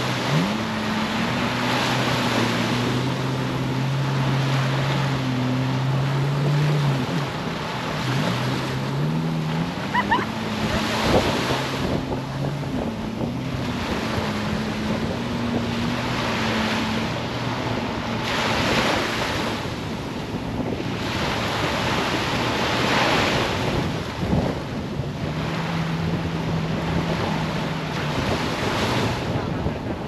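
Surf washing onto a sand beach in slow surges every few seconds, with wind buffeting the microphone. Beneath it an engine drones, shifting in pitch now and then; it fades out about halfway through and returns briefly near the end.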